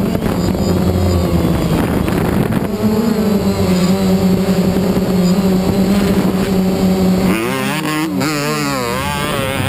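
DJI Phantom quadcopter's propellers and electric motors giving a loud, steady hum. About seven seconds in, the pitch starts wobbling quickly up and down as the motors change speed.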